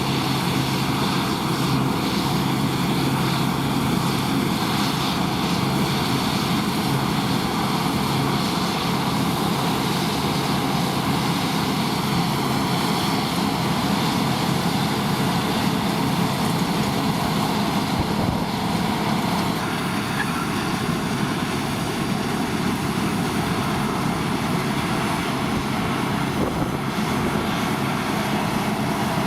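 New Holland combine harvester running steadily while cutting: a continuous engine drone with the hum of the threshing machinery.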